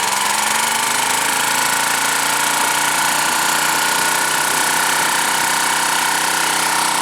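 A 1987 Honda lawn mower's small petrol engine running steadily on choke, right after a cold pull-start, before the throttle is moved to high.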